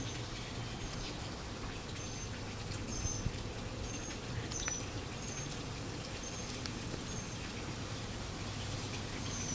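Chinchilla licking and working its mouth, with a few soft wet clicks, over a low steady hum. Short high chirps sound about once a second.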